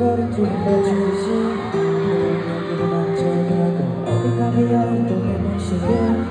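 A slow, emotional pop song performed live: a male vocalist sings held, wavering notes into a microphone over sustained accompaniment, heard through arena speakers.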